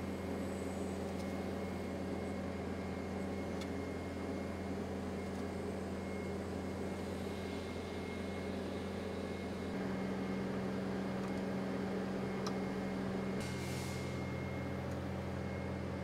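Skid steer engine running steadily while its loader quick-attach plate engages the CPT push system's mounting frame. About ten seconds in, the engine tone changes and holds for a few seconds.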